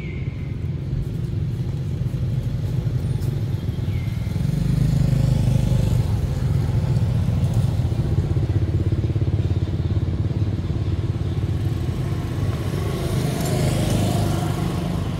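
A motor vehicle's engine running with a steady low drone. It grows louder about five seconds in, and near the end its pitch rises and falls as it passes.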